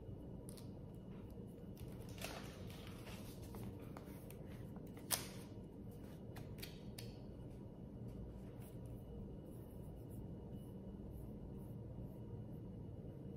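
Quiet room tone with a steady low hum, broken by a few faint clicks and one sharp click about five seconds in.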